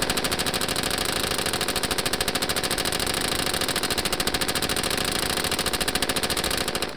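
M249 SAW 5.56 mm belt-fed machine gun firing one long continuous full-auto burst at roughly fourteen shots a second, about 800–840 rounds a minute. The firing stops abruptly near the end.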